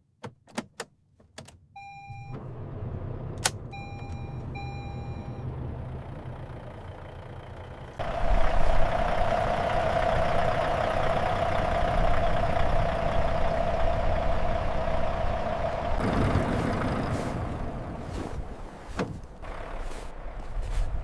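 Clicks, then a truck's diesel engine starting and idling, with an electronic chime beeping several times in the first few seconds. About eight seconds in, a loud steady rushing noise with a hum sets in over the engine, easing off near the end amid a few more clicks.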